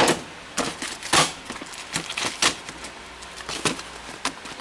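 Files and other hand tools clinking and clattering against one another and a steel tool chest drawer as the drawer is rummaged through: a string of irregular sharp clicks and knocks.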